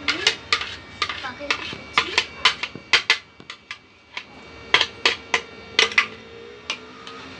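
Sharp, irregular clinks and knocks of a blender jar against a ceramic bowl as the last of a mango milkshake is emptied out. They come fast for the first three seconds, pause briefly, and return for a few more knocks past the middle.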